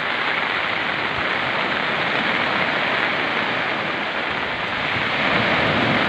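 Steady noise of heavy rain and storm surf breaking on the shore.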